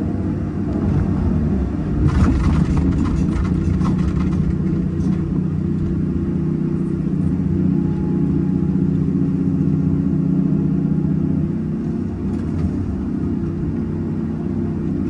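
Hyundai 330 hydraulic excavator's diesel engine running steadily under load through a dig-and-load cycle, with a stretch of rattling, scraping noise from about two to four seconds in.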